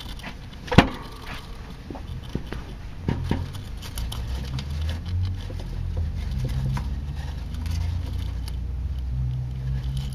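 Dwarf hamster scrabbling at a seed treat log for bits of seed: many small, irregular scratches and clicks, with one sharper click about a second in. A low rumble runs underneath from about three seconds in.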